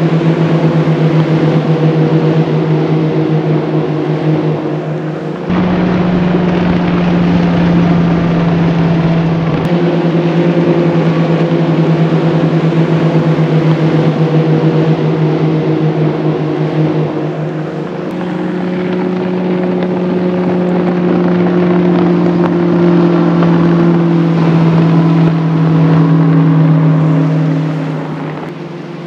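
High-horsepower outboard engines on bass boats running at full throttle as the boats pass one after another on plane, a loud steady drone. Its pitch shifts slightly from boat to boat, and it fades near the end.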